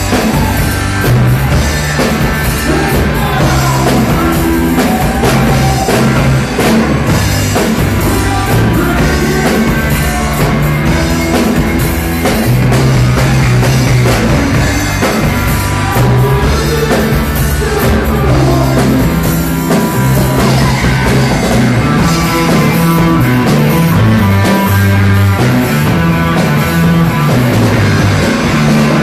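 Rock band playing live: drum kit and electric guitars, loud and unbroken.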